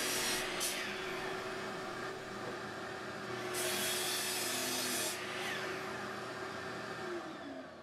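A small machine motor running steadily with a hum and a hissing rush, a brighter high hiss for about a second and a half in the middle, then slowing down near the end.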